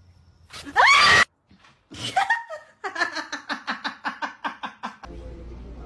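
A loud rising shriek about half a second in, then a person laughing in a quick run of short bursts.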